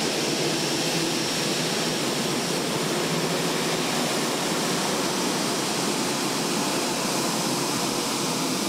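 Boeing 787 Dreamliner's turbofan engines running at taxi power as the airliner rolls slowly: a steady, even rush of jet noise with a faint high whine.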